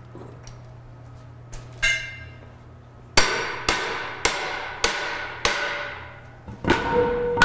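Metal-on-metal strikes on a large steel robot ring gear as it is worked loose. A couple of clanks come about two seconds in. From about three seconds in, a run of sharp, evenly spaced blows follows, about two a second, each ringing on after the hit.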